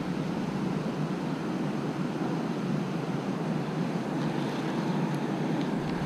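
Steady low rushing noise of the open-air surroundings, with faint ticks near the end.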